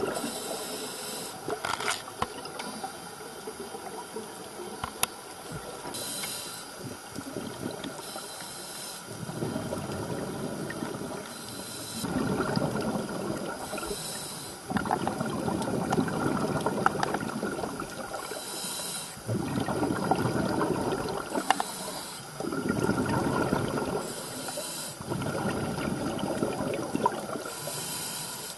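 Scuba regulator breathing heard underwater: a short hiss on each inhale, then a few seconds of rushing exhaled bubbles, repeating in a slow breathing cycle.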